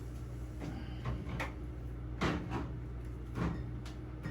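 Smoothie bottles being set onto fridge shelves: a handful of short knocks and clunks, the loudest a little past two seconds in.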